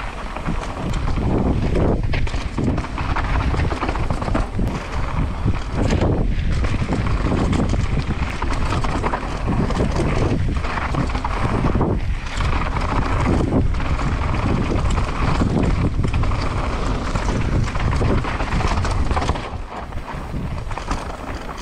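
Wind buffeting the microphone over the rattle of a downhill mountain bike ridden fast down a steep dirt trail, with irregular knocks from the bike and tyres; the noise eases near the end as the bike slows.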